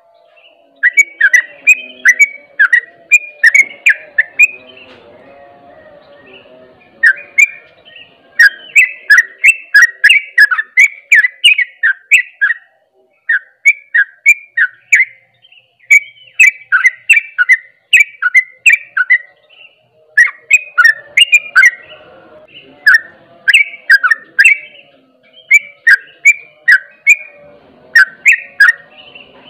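Yellow-vented bulbul (trucuk) singing its fast 'ropel' song: runs of sharp, loud chirping notes, a few a second, broken by brief pauses.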